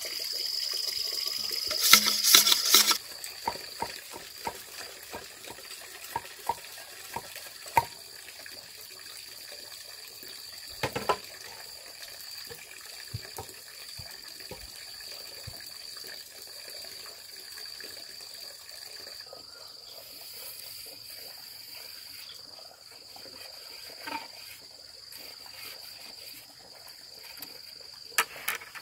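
Water running and splashing for the first few seconds. Then a steady high insect chirring, with scattered light taps and clicks and a couple of louder knocks.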